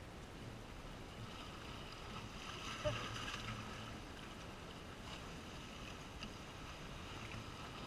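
Calm sea water lapping and washing gently over the shore rocks, with one sharp knock about three seconds in.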